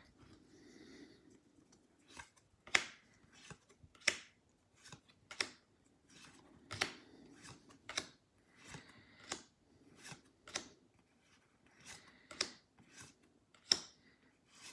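Trading cards being flicked one at a time from the front to the back of a small stack in the hands, a crisp card-on-card slide and snap about every second and a half, with soft rustling of the cards between.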